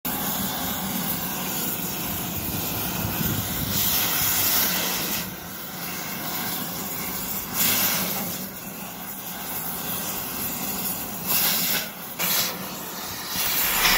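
Gas heating torch flame hissing steadily as it heats the steel of a mooring winch's bearing housing, swelling louder in short surges a few times.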